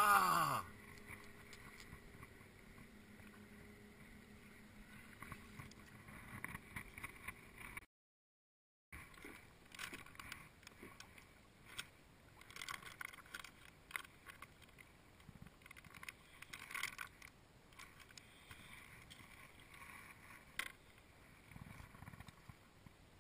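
Fishing tackle being handled in a kayak: a short falling whir right at the start. Later come scattered crinkles and taps as a plastic Gulp shrimp bait pouch is opened and the line is rigged.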